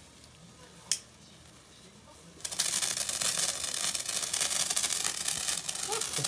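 A handheld firework catches about two and a half seconds in and sprays sparks with a steady, loud crackling hiss. A single sharp click comes about a second in.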